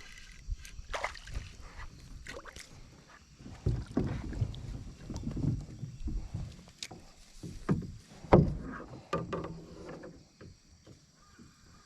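Irregular water splashes and knocks with a few sharp clicks, loudest about eight seconds in.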